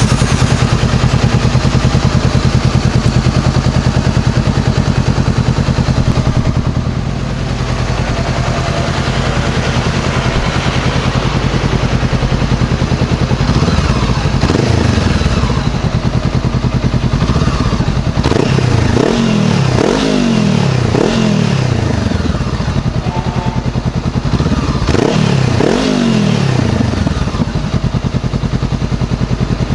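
A 2014 Honda CBR500R's parallel-twin engine idling through a MIVV Suono slip-on exhaust with its dB killer fitted. Its throttle is blipped about halfway through, then in three quick revs in a row and two more near the end, each rev rising sharply and falling back to idle.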